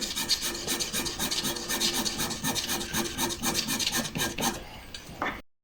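Pen nib scratching across paper in quick short strokes, about seven a second, as short hatching lines are drawn in ink. The sound cuts off suddenly near the end.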